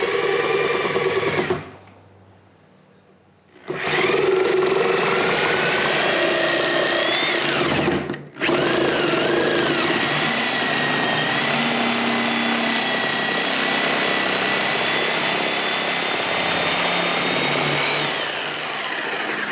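Porter-Cable reciprocating saw cutting through a wooden railroad tie, its motor pitch rising and falling with the trigger. It stops for about two seconds near the start, and again very briefly about eight seconds in.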